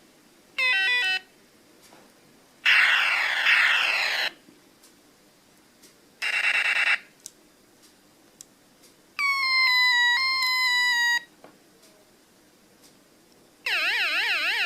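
Executor sound-effects toy playing five of its short electronic effects, one after another with pauses between them. First comes a quick run of beeps falling in pitch, then a longer noisy burst with falling sweeps, a short buzzy burst, a tone dropping in three steps, and near the end a fast warbling tone like a siren.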